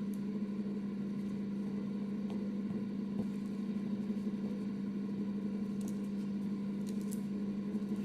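A steady low hum holding one even pitch, with a few faint soft ticks.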